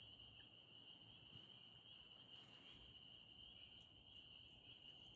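Faint frog chorus: many frogs calling together, merging into one steady high-pitched trill.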